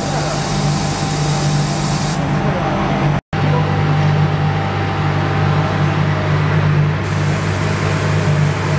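Pilot LHXT400 automatic wood-line painting machine running with a steady low hum and a spray hiss. The hiss thins out for a few seconds after about two seconds in and comes back near the end, with a short silent dropout about three seconds in.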